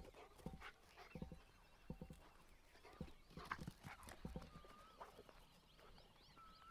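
Faint, irregular footsteps on dry field ground, stopping about four and a half seconds in. Then a bird gives a couple of short whistled notes and a run of high, quick chirps.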